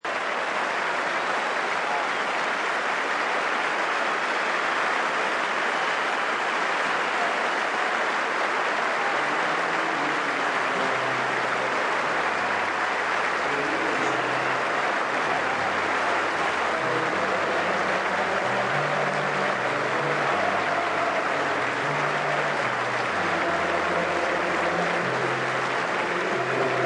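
Crowd applauding steadily throughout. About nine seconds in, music with a low bass line joins underneath the applause.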